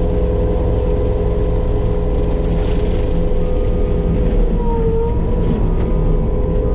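Skid steer's diesel engine and hydraulics running hard at a steady high speed with a constant whine. About five seconds in the pitch sags briefly and then comes back up.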